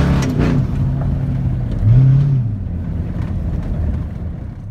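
Pickup truck driving on a gravel road, heard from inside the cab: a steady low engine hum with tyre and road rumble, a few sharp knocks near the start, and a brief low swell that rises and falls about two seconds in.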